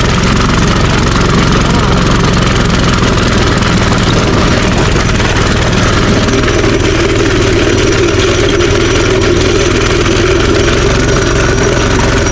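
Minibike's small engine running steadily, with a change in its note about halfway through that lasts until near the end.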